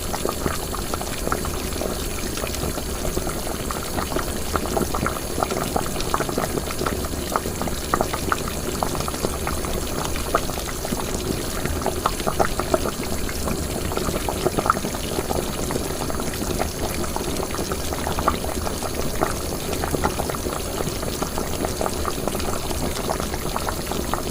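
Liquid boiling in a pot while cooking, a steady bubbling with many small irregular pops.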